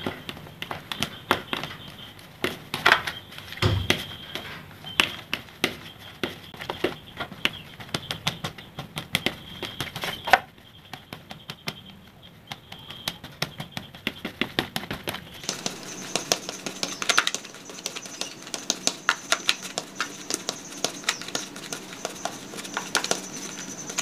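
Spoon and fingers mashing crumbly steamed fishing bait in a plastic bowl: irregular quick clicks and taps of the spoon against the bowl, with scraping in between.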